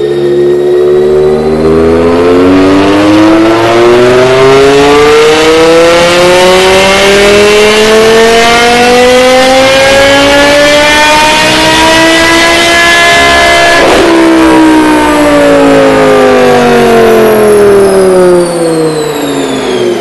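2008 BMW M6's 5.0-litre V10, breathing through a K&N intake and a Corsa exhaust with the secondary catalytic converters removed, pulling at full throttle on a chassis dyno. The pitch climbs steadily for about thirteen seconds toward roughly 8,200 rpm, then the throttle snaps shut and the revs fall away as the rollers spin down.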